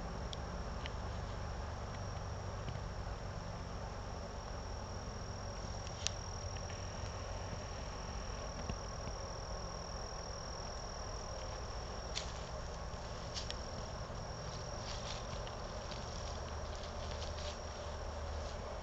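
Insects singing in a steady, high-pitched drone over a low rumbling noise, with a few short clicks, the sharpest about six seconds in.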